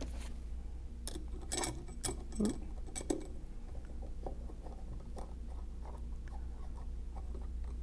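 Small metal clicks and taps as M6 flathead screws and a screwdriver are handled and a screw is started into the stainless steel flange's threaded hole. A few sharper clicks come in the first three seconds, then fainter ticking, over a steady low hum.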